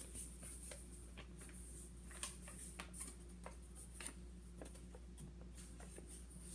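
Faint, scattered soft clicks and rustles of a sheet of A4 paper being folded and creased by hand, over a low steady hum.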